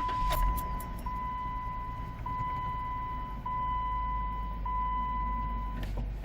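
Jeep Wrangler's 3.6-litre Pentastar V6 idling smoothly just after start-up, without the ticking of the failed rocker arm it was just repaired for. Over the idle a steady electronic warning chime sounds in long beeps, about one every second or so, and stops with a click near the end.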